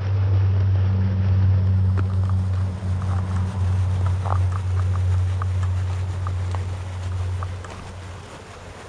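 A steady low engine drone that fades away near the end, with a few faint light ticks over it in the middle.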